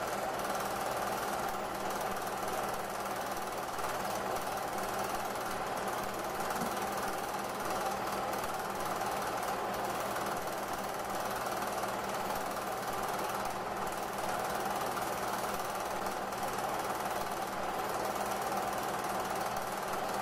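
Home-movie film projector running steadily, its motor humming and its film mechanism clattering in a fast, even rattle.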